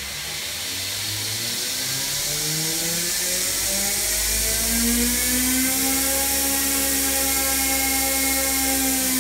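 Homemade 2x72 belt grinder, driven by a 2.5 hp DC treadmill motor on an MC2100 controller, switched back on and ramping up to its saved full speed. The motor's whine rises in pitch over about five seconds, then holds steady.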